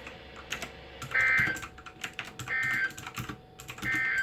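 Emergency Alert System end-of-message code: three short bursts of high two-tone data signal, about 1.4 seconds apart, the SAME digital tones that close an EAS alert. Faint clicks sound between the bursts.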